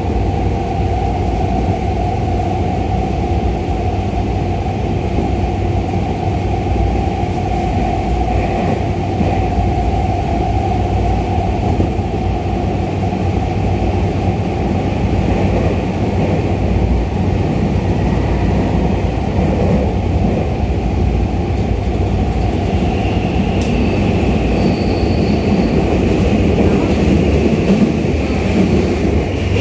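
Running noise inside a Tokyu 2020 series electric train car travelling through a subway tunnel: a steady, loud rumble of wheels on rail with motor hum. A higher whine joins about two-thirds of the way through.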